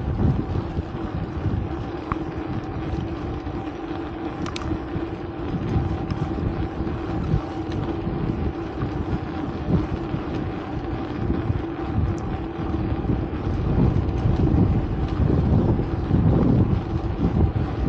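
A vehicle running with a steady low hum and rumble, and wind buffeting the microphone, the buffeting heavier near the end.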